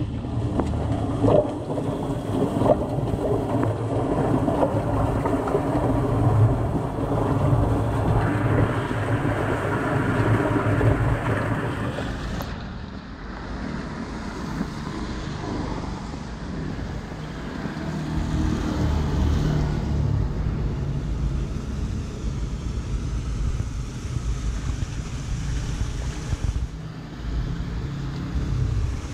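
Floodwater rushing and splashing as it pours through a cleared road culvert drain. About twelve seconds in the sound changes abruptly to a duller, lower rush of water.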